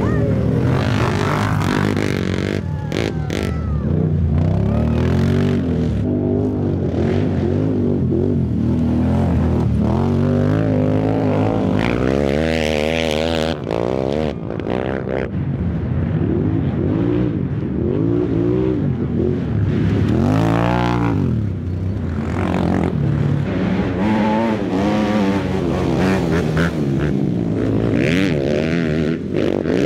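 Racing quad (ATV) engines revving hard as the quads ride past one after another, their pitch rising and falling with the throttle. The pitch swoops up and back down about halfway through and again about two-thirds of the way in as quads go by up close.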